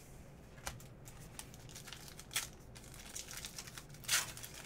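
A Panini Diamond Kings baseball card pack's wrapper crinkling in the hands with scattered small crackles, then tearing open with a louder rip about four seconds in.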